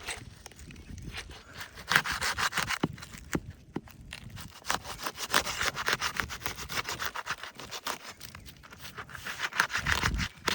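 Roof shingles being gently pried up and lifted, crackling and scraping as they bend and pull away, in three louder bouts. The shingles are tearing and delaminating, a sign the roof is too brittle to repair.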